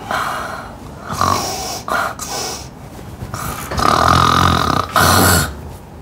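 A woman snoring loudly in a string of heavy, exaggerated snores. The longest and loudest two come in the second half.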